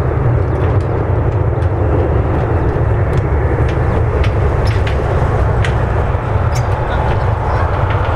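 Steady jet engine rumble from an Airbus A320-200 rolling out on the runway after landing, with a few faint clicks scattered through.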